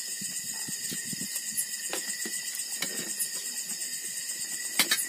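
Steady high-pitched chirring of night insects, such as crickets, throughout, with faint taps and clicks of a meal at the table and two sharp clicks near the end.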